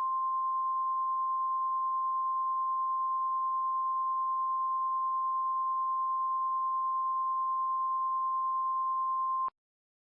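NOAA Weather Radio 1050 Hz warning alarm tone: one steady beep held for about ten seconds, stopping abruptly near the end. It is the alert that signals a weather warning message is about to be broadcast.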